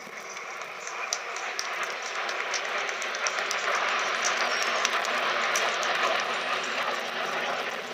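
Jet engine noise from Alpha Jet trainers (twin Larzac turbofans) passing in formation: a broad rushing sound that swells over a few seconds to its loudest past the middle and eases off near the end, with scattered sharp crackles on top.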